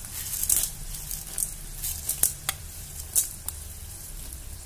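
Tempering frying in hot oil in a kadai: peanuts, cumin, mustard seeds and freshly added urad and chana dal sizzling steadily, with scattered sharp crackles and pops.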